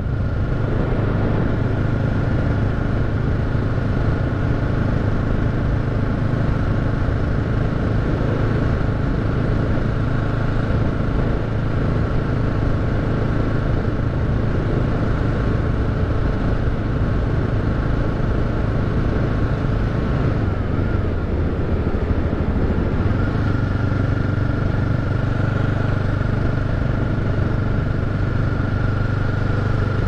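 Motorcycle engine running steadily while riding at cruising speed. About twenty seconds in, the engine note drops for a couple of seconds, then comes back up.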